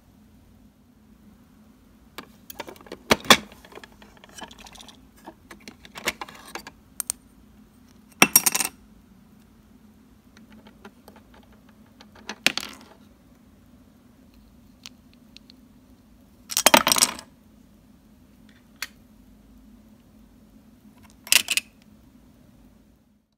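Small clinks and clatters of miniature toy kitchenware being handled: tiny utensils, pans and bottles tapping and knocking together in about six short bursts a few seconds apart, over a faint steady hum.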